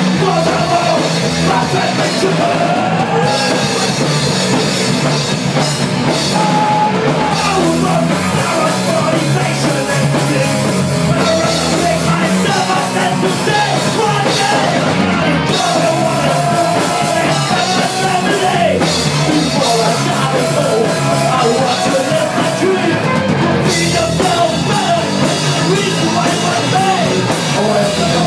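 Punk rock band playing live: a lead singer's vocals over drum kit and electric bass guitar, loud and without a break.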